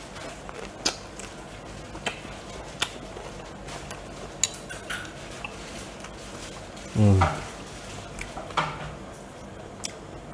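Metal spoon clinking against a small ceramic bowl, several separate sharp clinks spread out, with a short falling hum from the eater about seven seconds in while he chews.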